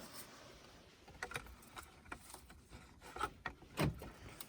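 Scattered rustling, scraping and light knocks of things being handled and moved about inside a van, with one louder knock a little before the end.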